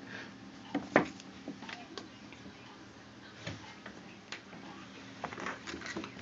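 A run of small irregular clicks and taps, the loudest about a second in and several more close together near the end, over a faint steady hum.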